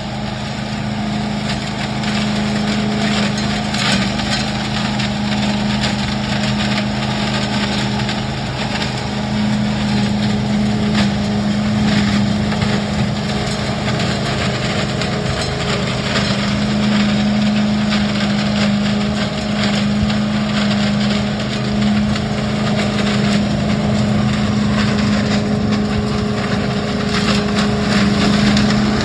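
Billy Goat DL1801 truck-loader leaf vacuum running steadily at working speed, its engine humming while the hose sucks up leaves and hedge clippings, with frequent clicks and crackles of debris passing through the hose.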